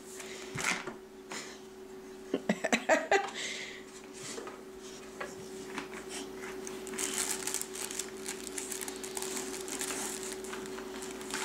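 Plastic baby toy clattering and knocking on a wooden floor as it is handled, with a cluster of knocks about two to three seconds in, over a steady hum.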